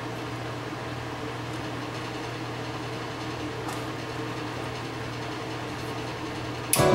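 A steady low hum, then about 6.7 seconds in music suddenly cuts in from the speakers of a Pioneer VSX-530 AV receiver: the amplifier's output switching on by itself after power-up, so the receiver's no-sound fault does not show this time.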